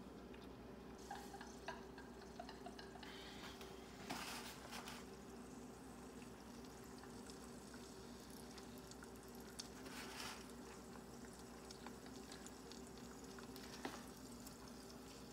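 Very quiet kitchen with a faint steady hum, and a few soft scrapes and clicks, about four, five, ten and fourteen seconds in, as a rubber spatula is slid along the countertop under a raw egg and lifted away.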